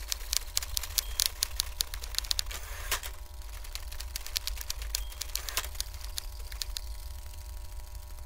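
Rapid, irregular clicking, dense for about the first three seconds and then sparser, over a steady low rumble and faint hum.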